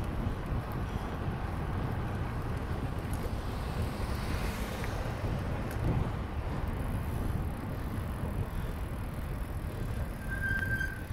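Steady low rumble of wind on the microphone and tyre noise from a bicycle being ridden along a track. A brief high-pitched note comes near the end.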